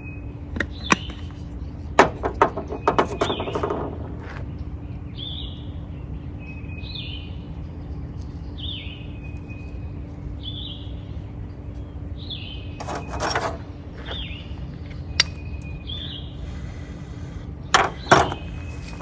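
Sharp strikes of a steel striker against flint, several in quick succession in the first few seconds and again in small clusters later, with a bird calling between them in short falling chirps about once a second.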